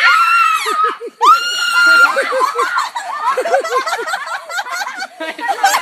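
A girl screams twice in long, high-pitched shrieks, then there is rapid laughter.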